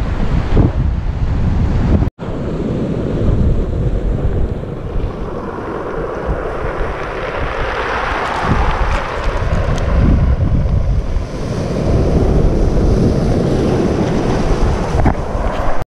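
Surf washing up a pebble beach, with strong wind buffeting the microphone. A wave swells to a loud hiss about halfway through.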